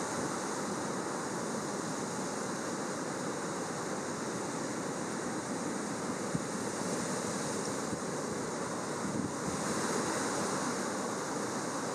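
Steady rushing wind noise on a GoPro's microphone while riding a mountain bike down a wet trail, with a single small knock about six seconds in.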